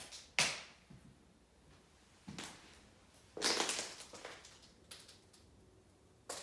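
Footsteps crunching and scraping over debris on a wooden floor: a handful of separate steps, the loudest just under half a second in and a longer scuffing one around the middle.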